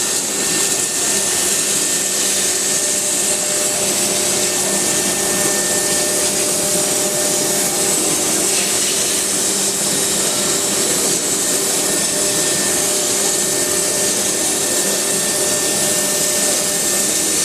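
Glass and mirror cutting machine running with a steady, loud, hissing machine noise that does not change.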